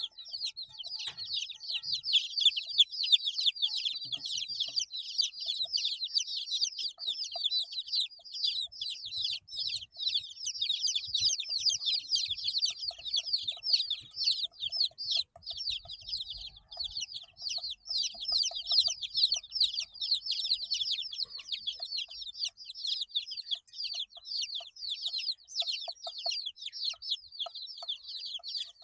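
A group of eight-day-old chicks peeping continuously: many high, short peeps, each sliding down in pitch, overlapping in a dense chorus.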